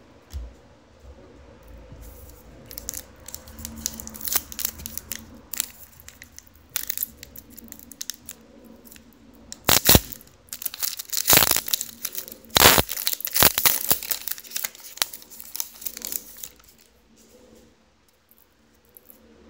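A trading-card pack wrapper being torn open and crinkled: a run of sharp crackles and tearing, loudest in a few bursts between about ten and fourteen seconds in, dying away near the end.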